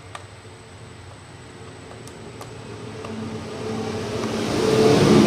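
A motor vehicle engine passing by, growing steadily louder over the last few seconds, over a low steady hum and a few light clicks.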